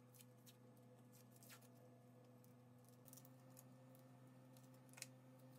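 Near silence: a faint steady hum, with one faint tick about five seconds in.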